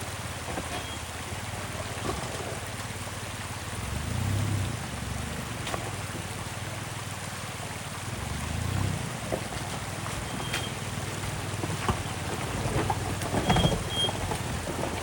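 Off-road truck crawling over a rocky trail: a low engine rumble that swells twice, over a steady hiss of tyres on wet rock and gravel, with scattered knocks and clicks from rocks that grow busier near the end.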